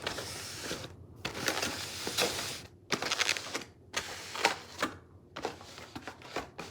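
Rustling and crinkling of food packaging with short clicks and knocks as wrapped sandwiches are shuffled around on a table, in irregular spurts with brief pauses.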